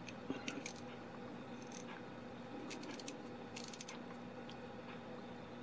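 Hand ratchet wrench, freshly cleaned and oiled, being worked back and forth, its pawl clicking over the drive gear in short runs. There are a few clicks near the start, a couple around the middle, and a quick run of clicks a little later.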